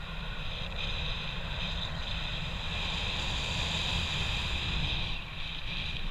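Wind rushing over the camera microphone in flight under a paraglider: a steady low buffeting rumble with a high hiss that eases slightly about five seconds in.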